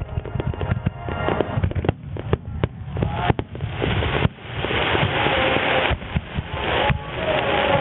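Super Starmine fireworks display, aerial shells bursting in rapid succession: a dense run of sharp bangs over a continuous deep rumble. About four seconds in this turns into a steady rush of noise, briefly broken near six seconds.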